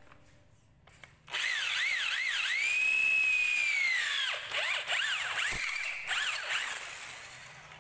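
Electric drill boring into a wooden post with a long bit. The motor whine starts about a second in, speeds up and slows down several times, holds a steady high pitch for a stretch while the bit cuts, then dips and picks up again.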